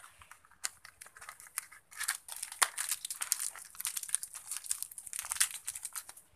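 Thin plastic wrapping crinkled and torn as a new ball bearing is unpacked by hand. A few scattered crackles at first, then dense crinkling from about two seconds in until just before the end.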